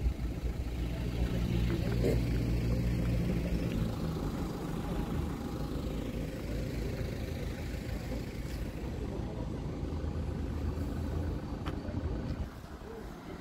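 A motor vehicle's engine running, its steady hum clearest for about the first four seconds and again briefly later, over a continuous low rumble of noise.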